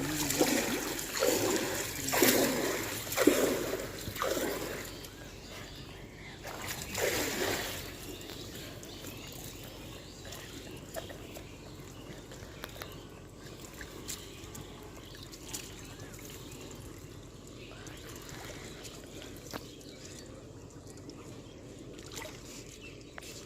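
Water splashing in several loud bursts over the first seven or eight seconds, then quieter, steady water sounds with a few faint knocks.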